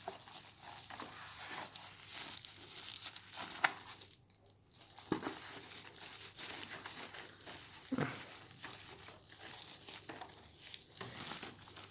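Plastic packaging crinkling and rustling as it is handled, with a few light knocks, pausing briefly about four seconds in.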